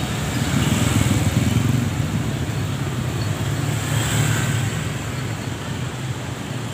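Street traffic, with motorcycles and cars passing close by. Their engines make a steady low rumble that swells about a second in and again around four seconds.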